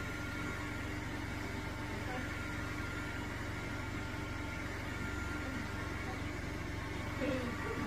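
Dreame L10s Ultra robot vacuum running: a steady motor hum with a faint constant whine, unchanging throughout.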